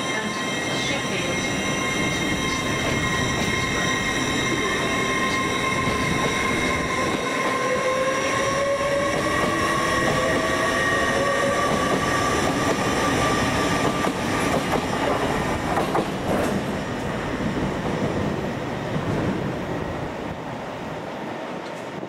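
Hull Trains Class 802 'Paragon' bi-mode train pulling out past the station, its running gear rumbling continuously under several steady high-pitched tones, with a whine that rises in pitch midway. A few sharp knocks come about two-thirds of the way through, and the sound fades near the end.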